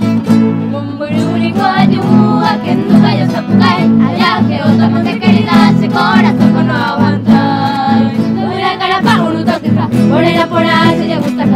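A Paraguayan polka played on plucked strings with a steady bouncing rhythm, and voices start singing the melody about a second and a half in.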